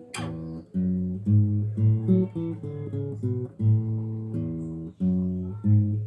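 Guitar music: plucked chords over a strong bass line, played in short rhythmic phrases with brief breaks between them.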